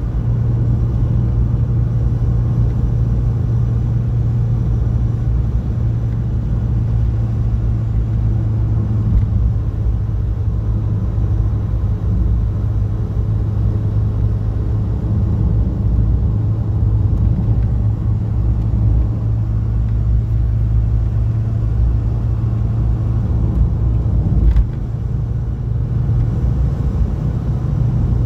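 Renault 21 driving at a steady road speed, heard from inside the cabin: a steady low engine hum under road and tyre noise. About 24 seconds in there is a single click, and the sound dips briefly.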